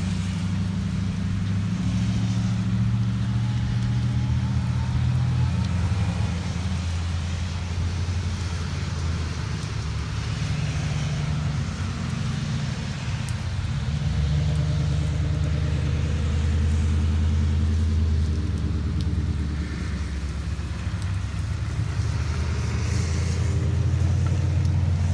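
Motor vehicle driving on a road: a steady low engine rumble with road noise, its pitch shifting a few times as the engine speed changes.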